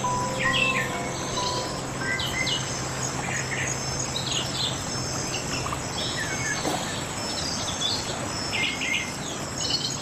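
Several birds chirping and calling in quick short notes and trills over a steady background hiss of forest ambience. A low held music tone fades out about halfway through.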